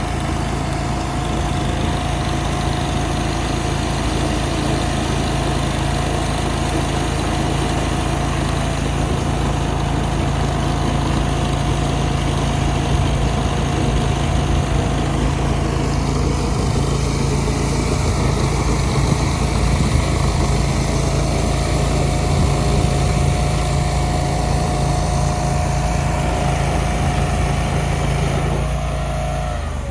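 An engine running steadily at a constant speed, then winding down with a falling pitch near the end.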